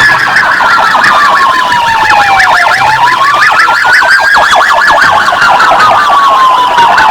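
Police siren: a slow wail falling, rising and falling again, with a fast electronic yelp warbling over it.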